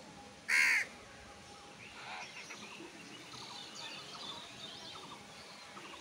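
House crows calling: one loud, harsh caw about half a second in, then a fainter call around two seconds in, with faint high chirps after.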